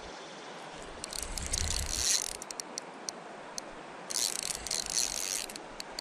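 Spinning fishing reel whirring and clicking in two spells of about a second and a half each, with a few single clicks between, while a hooked fish is being played.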